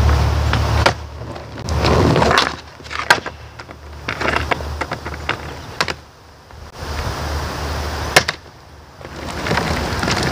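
Skateboard rolling on asphalt, its wheels rumbling, with sharp clacks every two to three seconds.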